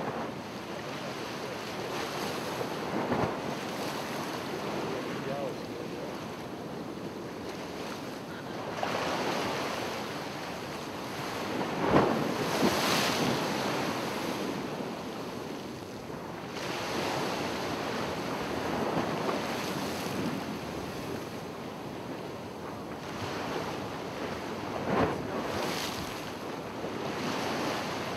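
Ocean surf washing ashore in slow swells, with wind on the microphone. The surges are loudest about halfway through and again near the end.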